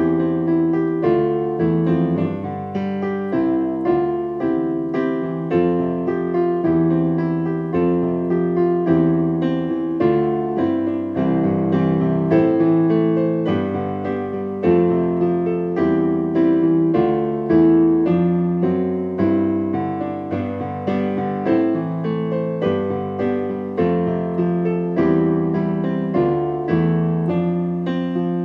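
Solo piano music, a gentle piece with steadily repeating notes.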